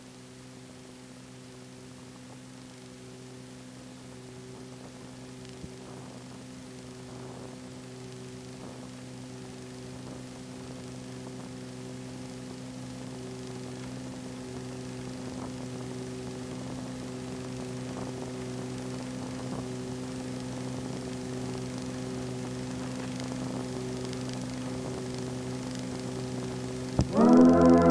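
Steady electrical mains hum on an old film soundtrack transfer, several low pitches held at once and slowly growing louder. Music starts abruptly about a second before the end.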